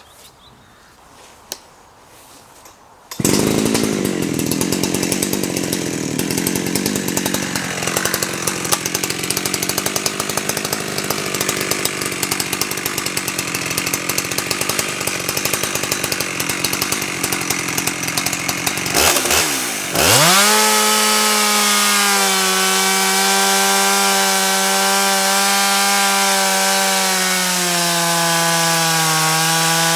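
Chainsaw mill ripping a log lengthwise into half-inch-thick siding boards: the saw comes in suddenly about three seconds in and runs hard through the cut, dips briefly near two-thirds of the way, then revs back up and runs steadily.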